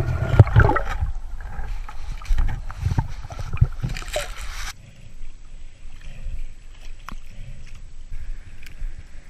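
Water sloshing and bubbling close to the microphone, with knocks and handling noise; about halfway through it cuts off abruptly to a quieter, steady water background.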